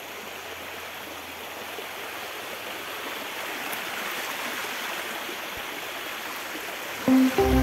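Small forest stream rushing and splashing over rocks, a steady noise of running water. Music comes in near the end.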